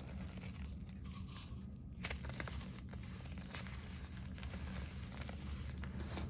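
Hands squeezing and crumbling clumps of green-dyed gym chalk powder: soft, continual crunching and crackling, with a sharper crunch about two seconds in, over a steady low hum.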